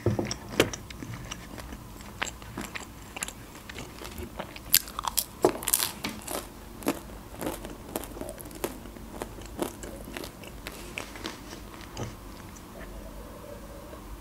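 Close-miked chewing of a mouthful of Turkish pide, with irregular sharp mouth clicks and smacks.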